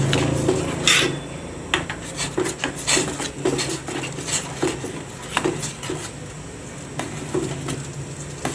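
A spoon stirring in a pot, with irregular clinks and scrapes against its sides. The pot holds grated kencur and ginger in water being brought back to the boil.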